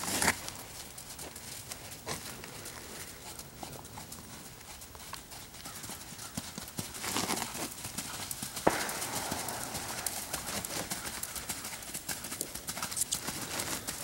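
A horse's hooves striking the dirt arena footing at a trot, with one sharper knock about nine seconds in.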